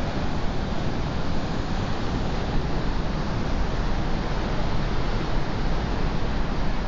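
Wind buffeting the microphone over a steady wash of ocean surf, with no single wave standing out.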